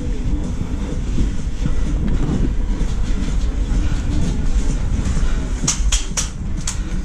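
Footsteps crunching on gravel with gear rustling, over a steady low rumble; a few sharp clicks come close together near the end.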